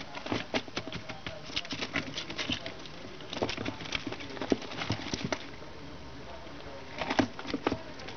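Pet squirrel digging and scratching in dry cage bedding, burying and digging up nuts: rapid rustling scratches that pause for a second or so after the middle, then start again.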